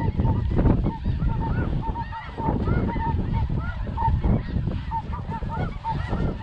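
A large flock of snow geese calling, with many short, high yelping notes overlapping without pause, over a low rumble of wind and blanket fabric on the microphone.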